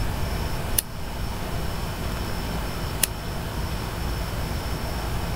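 Steady low rumble of wind buffeting a laptop webcam microphone, with two sharp clicks, about a second in and about three seconds in.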